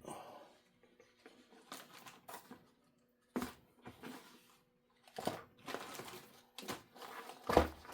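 Black electrical tape being pulled off the roll and torn, in a few short, rasping bursts.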